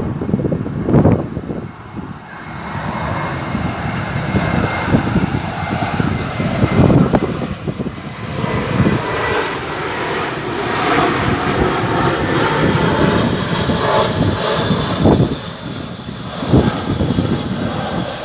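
Airbus A319 jet airliner on final approach, its engines giving a steady jet noise with a faint high whine. Wind buffets the microphone in gusts.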